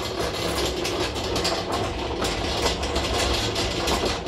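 Tormach 1100MX automatic tool changer's carousel rotating as it references the tool tray: a steady mechanical hum with a dense, irregular rattle of clicks over it.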